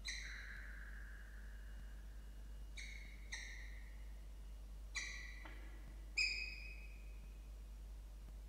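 Peregrine falcon calling at the nest: five whining calls. The first is long and sinks slowly in pitch, the other four are short, and the last, a little after six seconds, is the loudest.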